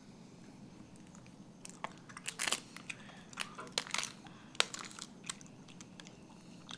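A thin plastic pastry cup crinkling and clicking as it is handled and set down, with soft chewing of a strawberry pastry: a scatter of sharp crackles from about two to five seconds in.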